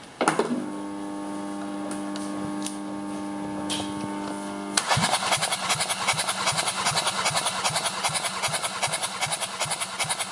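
A steady electric motor whine that rises briefly at its start, then from about five seconds in the Kia D4HA 2.0 L turbodiesel being cranked over by its starter, an even clatter of about six pulses a second. This is the engine turning over for a compression test on its second cylinder.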